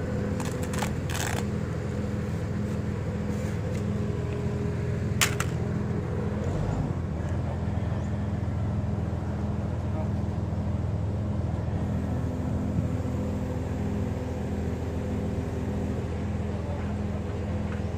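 Engine of the machine hoisting a precast concrete pile on a cable, running steadily. A few sharp clicks or knocks come in the first seconds, and one more about five seconds in.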